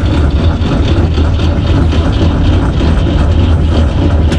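Starter cranking the UTB Universal 445 tractor's four-cylinder diesel engine without it catching, heard from inside the cab. The cranking falls away near the end. The owner blames a flat battery for the engine not starting on the first try.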